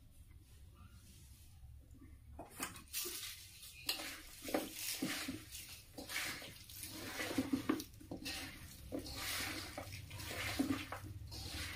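Chicken pickle being mixed with its oil: repeated wet, scraping stirring strokes against the vessel, starting about two seconds in and going on in uneven bursts.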